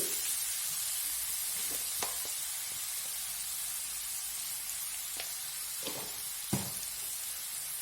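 Chopped onion, garlic and tomato sizzling steadily in hot oil in a pan. A few light knocks come about 2 seconds in and between 5 and 6.5 seconds in.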